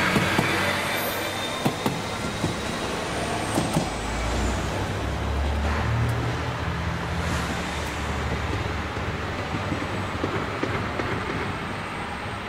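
JR Shikoku diesel railcar pulling away from the platform, its engine running with a low rumble that swells about five seconds in, with a few sharp clicks, then fading as it recedes.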